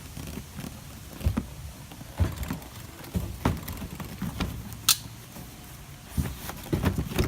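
A cardboard model-kit box being opened and its contents handled: irregular knocks and scrapes, with a sharp click about five seconds in.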